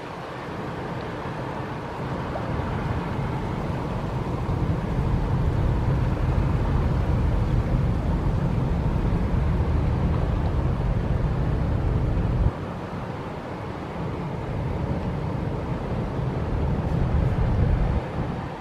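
Wind buffeting the microphone: a low, gusty rumble that builds, cuts off suddenly about two-thirds of the way through, then builds again and drops away near the end.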